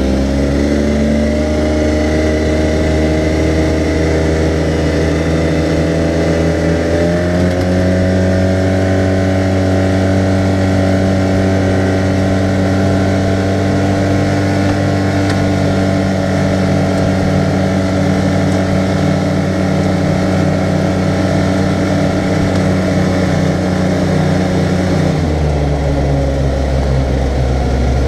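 2014 Arctic Cat side-by-side UTV's engine running under way at a steady road speed, heard from the open cab. The engine note settles as it reaches speed at the start, rises a little about seven seconds in, and drops near the end as the throttle eases off.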